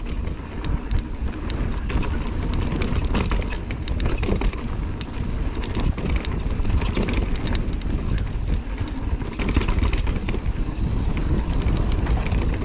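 Mountain bike riding down a dirt trail: a steady rumble of wind on the microphone and tyres on the ground, broken by many sharp clicks and rattles as the bike goes over bumps.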